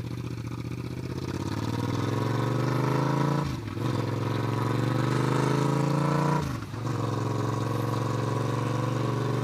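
2019 Yamaha MT-07's parallel-twin engine running loud through an open exhaust with the muffler removed, the bike accelerating. The revs climb, drop briefly twice as at gear changes, then rise again and hold steady near the end.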